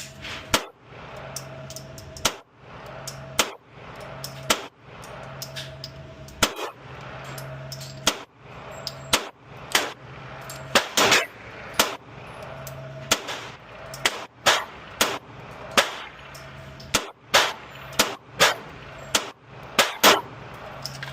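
A long string of pistol shots from a Springfield Echelon, some well spaced and some in quick pairs and runs, with the shots coming faster in the second half.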